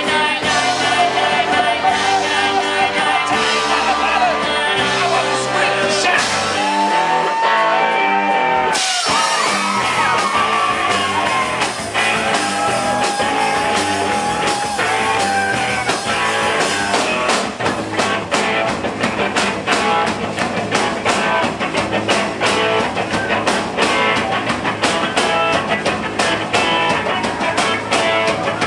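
Rock band music with a singer holding long notes and a full instrumental backing of guitar and drums. The texture changes abruptly about nine seconds in.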